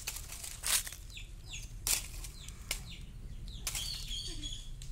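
Dry fallen leaves crunching and rustling in several short bursts as a kitten pounces and paws at a small snake in the leaf litter. Faint bird chirps sound between the crunches.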